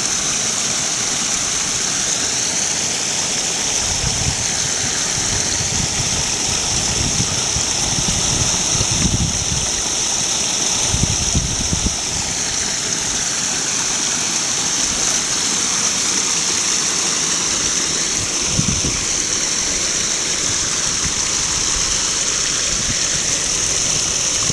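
Small snowmelt brook running steadily through an ice-edged channel, a continuous babbling rush of water. Low rumbles come and go under it several times.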